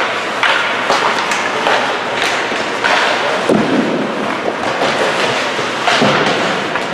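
Ice hockey play: skates scraping the ice, with repeated sharp clacks and thuds of sticks, puck and boards.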